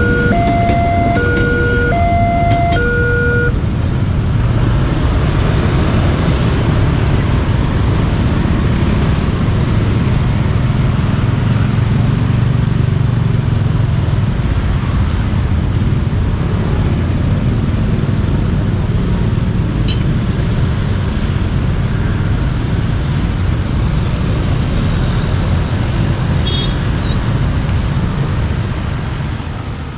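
A level-crossing warning siren sounds two electronic tones, alternating high and low, and stops about three seconds in. Then comes a long, steady rumble of road traffic.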